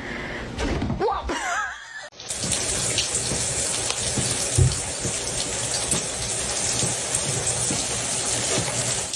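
Running water: a steady hiss with small scattered splashes, starting about two seconds in after a brief wavering high-pitched sound.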